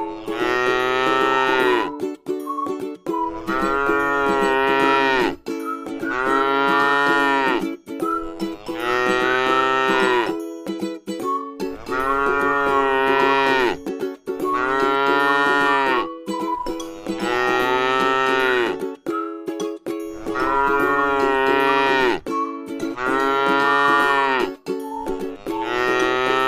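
A cow mooing over and over: long drawn-out moos about every three seconds, each almost the same as the last.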